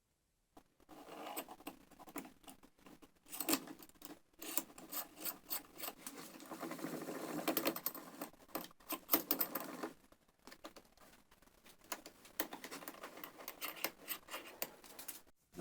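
Small metal parts of a vise being handled and fitted during reassembly: irregular clicks, taps and scraping, thickest in the middle.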